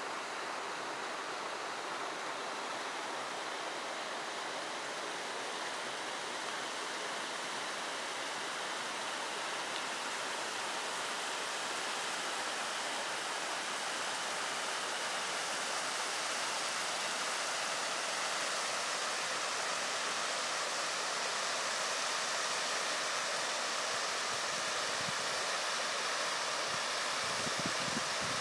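Steady, even rushing noise outdoors, growing slightly louder, with a few low rumbles near the end.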